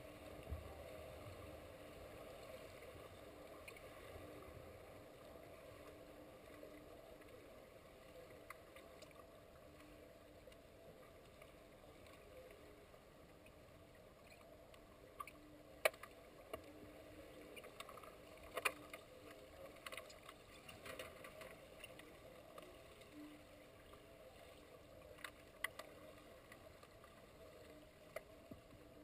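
Muffled underwater pool ambience heard through a submerged camera: a faint, even water hiss with a low hum. A few sharp clicks ring out in the second half.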